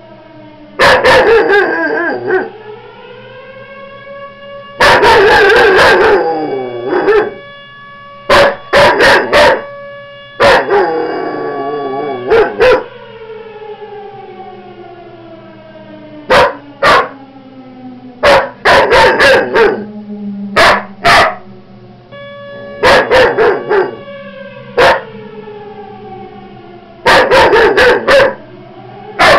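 A dog howling close by in short, very loud, wavering bouts, about a dozen times, along with a siren whose tone falls slowly over several seconds between the howls.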